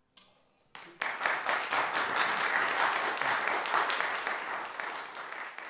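Audience applauding: a couple of lone claps, then full applause from about a second in, thinning out near the end.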